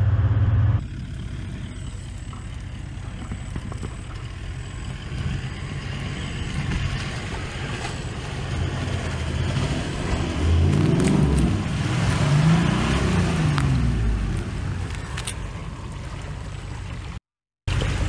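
Toyota LandCruiser's engine running off-road, revving up and falling back twice as it drives through a creek crossing. The sound cuts out briefly near the end.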